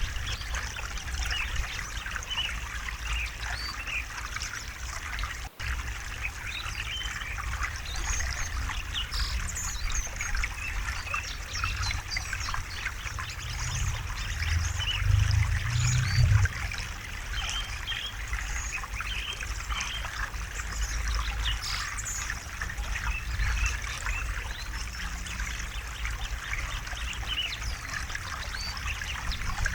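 River water babbling and trickling over stones, a steady stream of small splashes with a low rumble underneath that swells for a couple of seconds midway. The sound cuts out for an instant a little before six seconds in.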